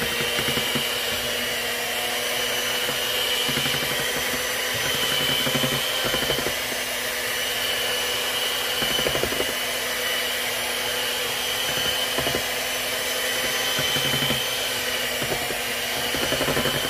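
Electric hand mixer running steadily, its beaters churning thick cake batter in a metal bowl, with a steady high whine from the motor.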